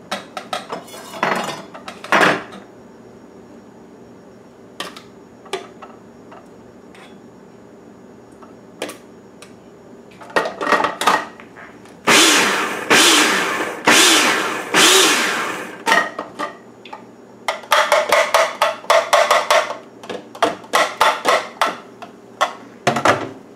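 Electric food processor chopping salsa. Its plastic lid and bowl clatter in the first couple of seconds. Later the motor runs twice for a second or two each time, and then it is pulsed in rapid short bursts.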